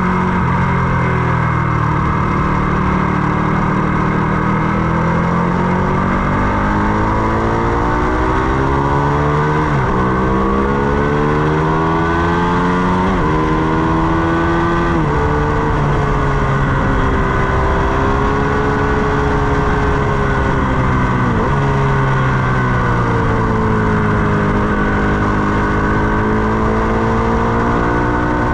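Ducati Panigale 899's 898 cc Superquadro V-twin running hard on track. Its pitch climbs under acceleration and drops abruptly at each upshift, about four times, and winds down more gradually under braking, over a steady rushing noise.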